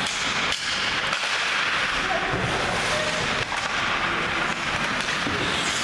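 Ice hockey play in a rink: a steady hiss of skates scraping the ice, broken by a few sharp clacks of sticks and puck, with faint calls from players or onlookers.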